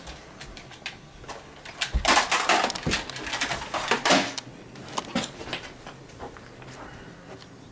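A house window being shoved open: a run of clattering knocks and scraping from the sash and frame for about two seconds, with a few more knocks after.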